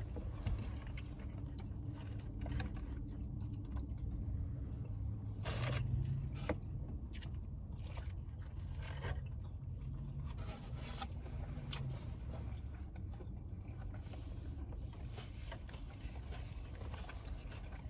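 A person chewing and biting food close to the microphone, with scattered crunches and small clicks, loudest about six seconds in, over a steady low hum.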